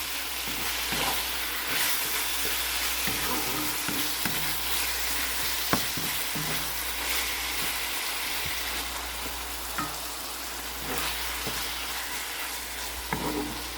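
Ground chicken sizzling as it browns in olive oil in a cooking pot: a steady frying hiss, with a few sharp knocks now and then from a utensil against the pot.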